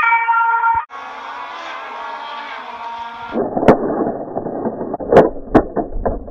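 Electronic two-tone hi-lo siren of a toy police car, cut off just under a second in, followed by a busier electronic siren-like sound for a few seconds. Then scraping on dirt and several sharp knocks as the toy police cars are rammed and one is tipped over.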